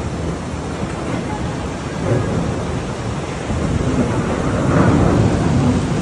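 Steady, loud rush of a heavy rainstorm and floodwater, with wind rumbling on the microphone.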